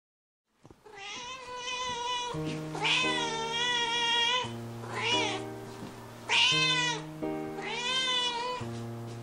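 A domestic cat meowing several times over soft background music, some meows long and wavering in pitch.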